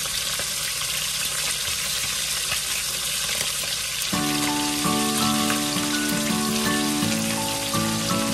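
Okra and eggplant boiling in a pot of water, a steady hiss of bubbling. Background music with held notes comes in about four seconds in.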